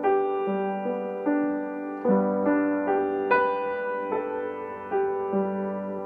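Upright piano played solo: slow chords and broken-chord figures, each note struck and left to ring and fade.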